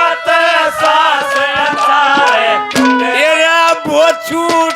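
Live Haryanvi ragni folk music: a wavering melody line over a rapid run of hand-drum strokes.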